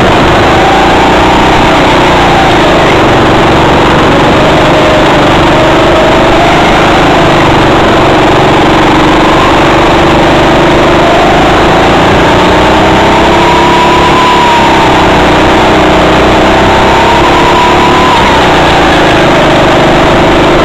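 Go-kart engine running under way, heard close up from on board the kart, its pitch rising and falling several times as the kart speeds up and slows for the corners.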